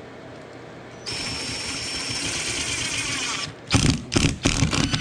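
Power drill driving a screw: one steady run of about two and a half seconds with a thin high motor whine that winds down, then short trigger bursts about two a second to seat the screw.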